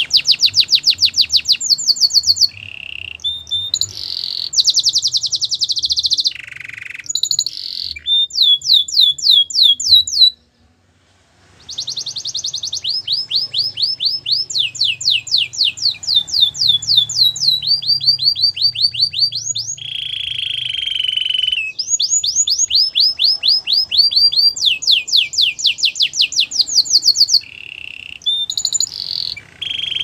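Canary singing: fast trills of rapidly repeated falling notes, in phrases of a second or two that switch from one trill type to another, with a brief pause about ten seconds in.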